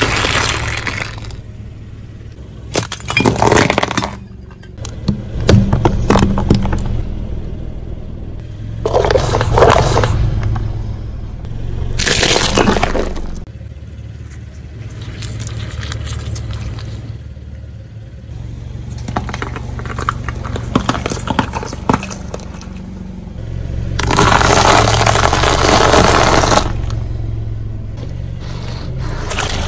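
Car tyre rolling slowly over small objects and crushing them: coloured eggs cracking and strawberries squashing. There are about six loud crunching, splitting bursts with quieter gaps between them, over a steady low hum from the car.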